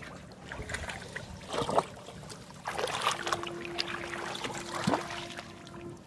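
Shallow water splashing and sloshing in irregular bursts. A steady hum joins about three seconds in.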